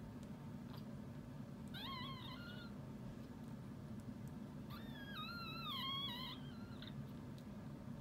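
Miniature Schnauzer giving two high-pitched, wavering cries: a short one about two seconds in and a longer one past the middle. A low steady hum sits underneath.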